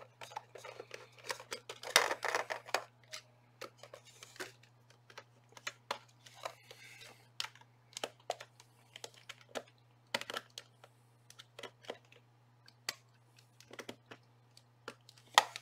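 Small clicks, ticks and scrapes of a Japanese crosshead (JIS) screwdriver turning a small screw out of the plastic back case of a Sangean ATS-909X2 radio, mixed with the knocks of the case being handled. The louder knocks come about two seconds in, around ten seconds in and just before the end.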